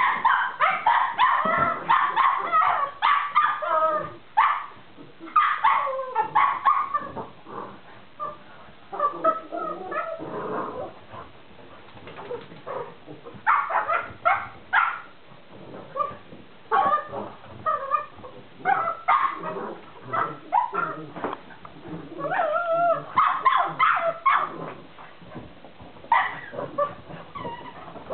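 Small dogs playing together, barking and yipping in repeated bursts with short quieter pauses between them.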